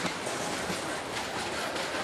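Tank cars of a passing freight train, their steel wheels rolling on the rails with a steady, even noise and many quick, irregular clicks.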